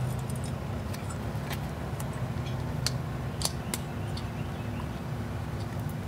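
A hand screwdriver driving mounting screws into a floodlight camera's metal mounting bracket: a few scattered small metallic clicks and ticks, over a steady low hum.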